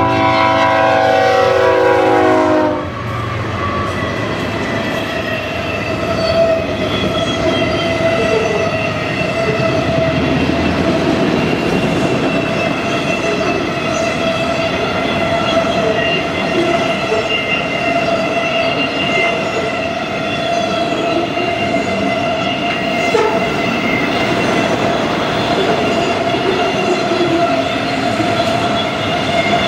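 A BNSF freight train's multi-chime air horn sounds a chord that cuts off about three seconds in. Then the GE ES44C4 diesel locomotives pass and a long string of autorack cars rolls by, the steel wheels on the rail making a steady rumble with a sustained ringing tone over it.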